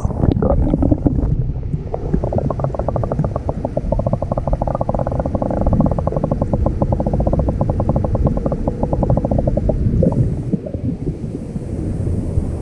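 Muffled rush of stream water heard through a submerged camera microphone, a dense low rumble with the high end cut off. From about two seconds in to near the end, a rapid even pulsing rattle joins it.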